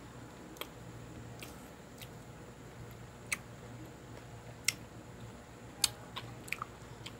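Sharp little clicks from eating a ponkan orange close to the microphone, as segments are pulled apart and chewed, scattered a second or so apart with a quick cluster near the end.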